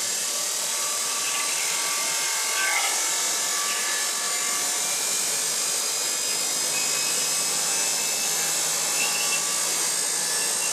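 Siemens 1PV AC motor, driven by an open-source AC inverter controller, running steadily on a test bench together with the Netgain Warp 9 DC motor coupled to it: an even whine of several high steady tones over a hiss.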